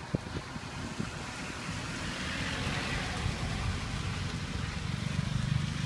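Outdoor street ambience: a steady low rumble and hiss, with a few short knocks just after the start.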